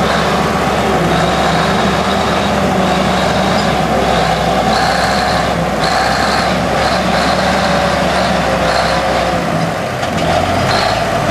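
A heavy engine running steadily, with a faint intermittent high whine over it.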